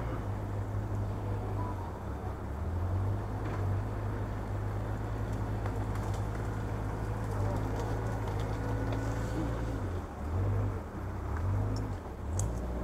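Heavy diesel engine running steadily with a low, even hum, with a few light knocks and clicks over it.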